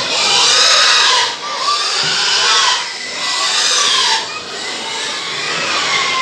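Pigs squealing in three harsh squeals of about a second each, with short breaks between them, while crowding at a feed trough.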